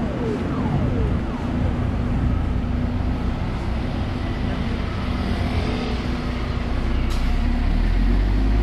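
City street traffic: bus and car engines running steadily, with a few short falling tones in the first second and a deeper engine rumble building near the end.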